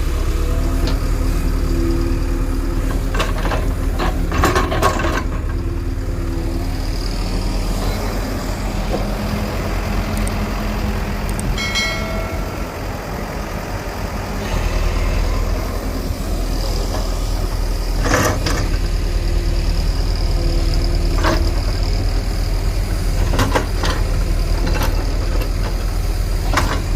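Heavy machine's diesel engine running steadily with a low drone, with several sharp knocks or clanks over it and a brief high tone about halfway through.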